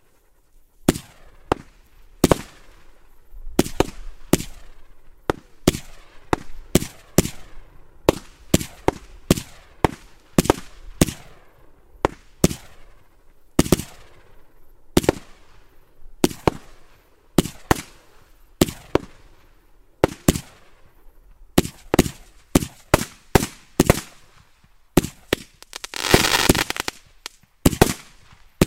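A 150-shot, 20 mm firework cake firing its tubes in quick succession: sharp bangs of the shots and bursts, about one or two a second. Near the end there is a dense stretch of crackling about two seconds long.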